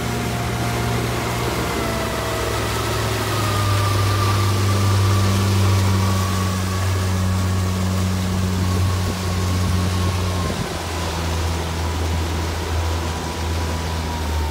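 Johnson 70 hp outboard motor running under way at steady speed, a continuous drone whose pitch eases down slightly, over the rush of water and wind from the moving boat.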